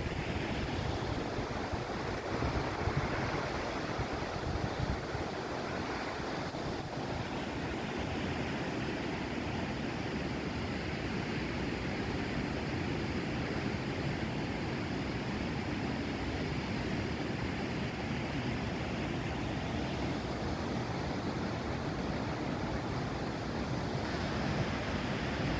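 Waterfall falling close by, a steady rush of water with no change in level.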